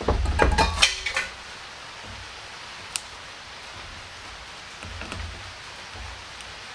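Handling noise from diagonal cutters being worked at a thermistor's solder joint on a 3D printer's heated bed: a cluster of knocks and clicks in the first second or so, the loudest part, then a single sharp click about three seconds in and faint rustling later.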